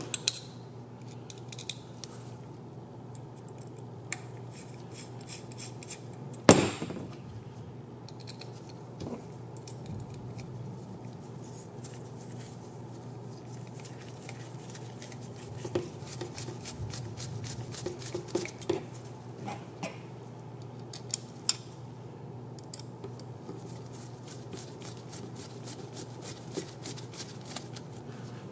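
Small metallic clicks and ticks of a hex driver turning button head screws into a carbon-fibre quadcopter frame, with light rapid ticking through the second half. One sharp knock about six seconds in.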